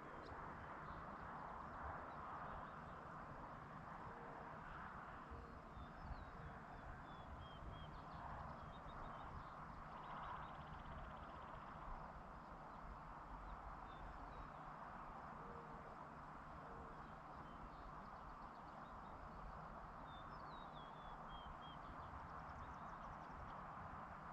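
Faint outdoor evening ambience: a steady soft hiss, with a distant songbird giving a short run of high notes stepping down in pitch, twice, about fifteen seconds apart.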